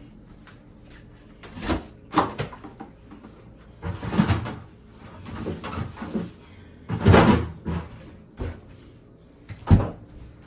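Kitchen doors being opened and shut: a series of separate knocks and thuds, about five in all, with handling noise between them. The loudest come about seven seconds in and near the end.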